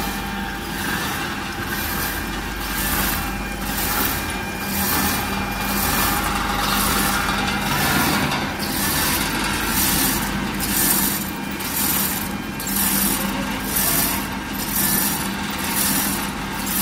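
Automatic film-wrapping and heat-shrink packaging machine running: a steady low hum under a rhythmic high swish about one and a half times a second, one stroke for each roll of cooking paper that is wrapped.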